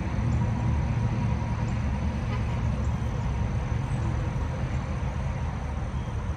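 Steady low rumble of highway traffic, with no single passing vehicle standing out.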